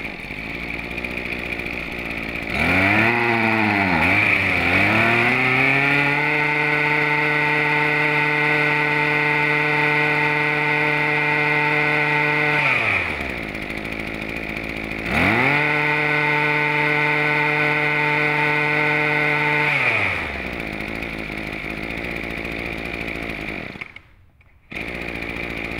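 Hitachi (Hikoki) 24cc two-stroke brush cutter engine idling, then opened up to full throttle twice for several seconds each, dropping back to idle in between. The first rev-up surges unevenly before it settles into a steady high pitch. Near the end the sound drops out for under a second, then idles again.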